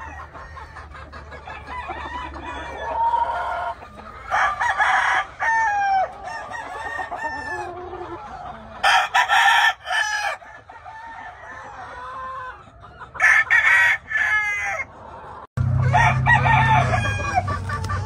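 Gamefowl roosters crowing several times over a background of clucking hens and cocks.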